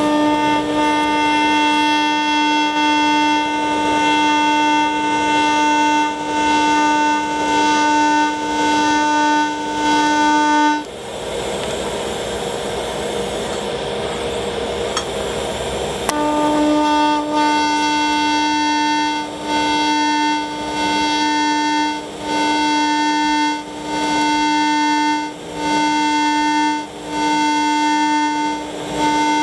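TIG welding arc from a Lincoln Invertec V205-T on pulsed DC, buzzing with a steady tone set by its 250–300 Hz pulse frequency. The arc stops about 11 seconds in and strikes again about five seconds later, then swells and dips every second or so.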